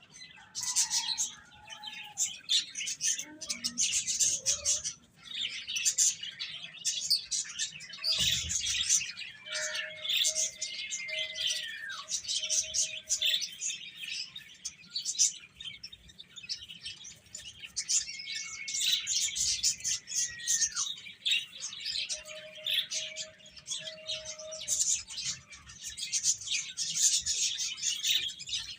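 Many baby chicks peeping continuously, a dense chatter of high, rapid chirps. Twice, a lower note repeats four or five times in quick succession.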